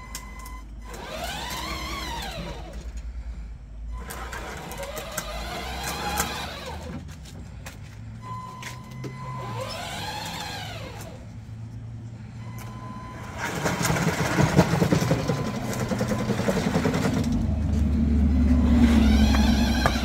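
Drive motors of a remote-control beach fishing cart whining, rising and then falling in pitch each time the cart speeds up and slows down, four times, with a steady high tone in between. A louder rumbling stretch comes a little past the middle.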